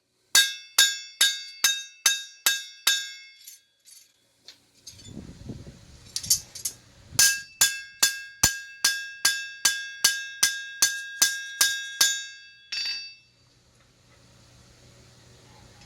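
Hammer blows on a bar of CPM Z-Tough steel on an anvil during cold forging, each a sharp ringing clang, about two and a half a second. A run of eight strikes fades out, a low rumble fills a pause of a few seconds, then a second run of about a dozen strikes ends in one last blow.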